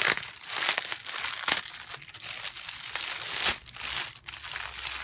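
Plastic packaging crinkling as small bags of diamond-painting drills are handled, in irregular rustles with sharper crackles near the start and about three and a half seconds in.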